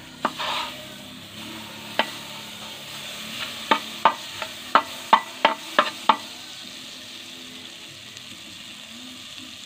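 Butter sizzling as it melts in a hot non-stick pot and is stirred with a plastic spatula. A quick run of sharp taps of the spatula against the pot comes between about two and six seconds in.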